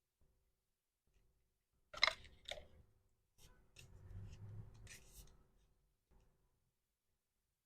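Packaging being handled: two crisp, sharp snaps about two seconds in, then a few lighter clicks over a soft rustle that stops about six seconds in.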